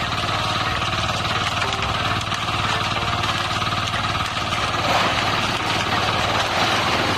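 Concrete mixer's engine running steadily with an even, rapid chug.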